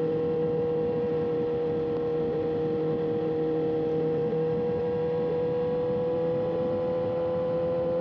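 Motorcycle engine holding a steady cruise: one steady droning note that creeps slightly up in pitch, over a constant rush of road and wind noise.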